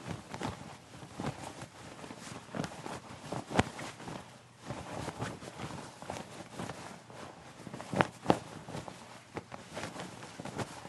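Denim jeans fabric rustling and brushing in irregular bursts, with sharper snaps of the cloth now and then, the loudest about three and a half seconds in and twice about eight seconds in.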